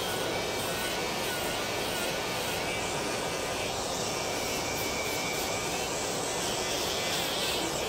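Electric nail drill (e-file) whirring steadily as a sanding cap on its bit buffs down callus on the sole of a foot, with a faint whine that wavers slightly in pitch.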